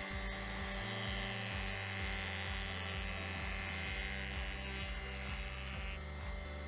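Jointer running with a steady motor whine while a wooden board is fed across its spinning cutterhead; the cutting noise drops away near the end as the pass finishes.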